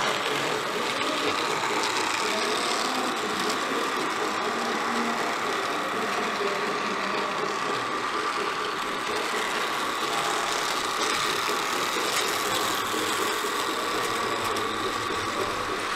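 Model railway train running on its track: a steady mechanical whir from its small electric motor and wheels.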